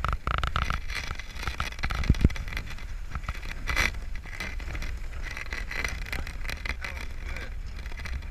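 Water rushing and splashing along the hull of a heeled sailboat under way, with wind buffeting the microphone in a low rumble. A couple of sharp knocks about two seconds in.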